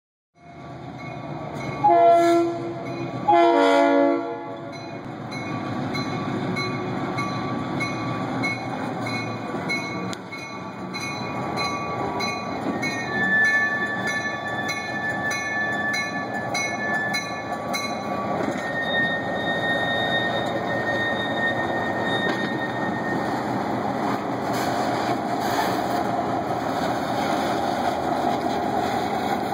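Diesel locomotive sounding two short horn blasts, about two and three and a half seconds in. Then its engine runs steadily, growing louder as it passes slowly pulling a freight car along street-running track. In the middle, steel wheels squeal on the rails in long high tones.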